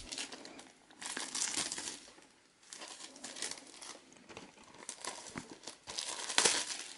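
Clear plastic packaging crinkling and rustling in irregular bursts as a steelbook is handled and pulled out of its wrapping, loudest about six and a half seconds in.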